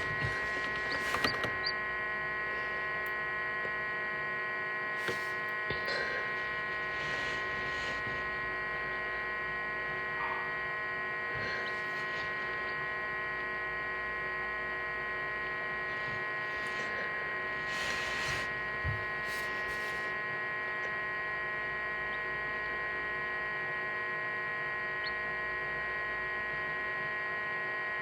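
Egg incubator running: a steady electric hum of many held tones. A few faint, brief scratching sounds come through it now and then.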